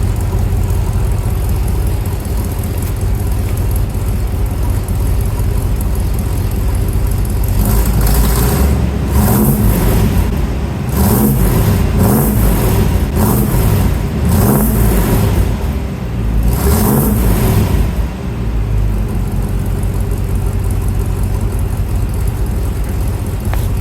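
1978 squarebody pickup engine running through a newly welded exhaust with a muffler: a quiet steady idle, then about six throttle blips, each rising and falling, before it settles back to idle near the end.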